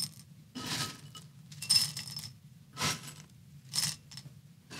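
Handfuls of dry cereal pieces dropped by hand into a bowl, rattling and clinking against it: four short bursts about one a second.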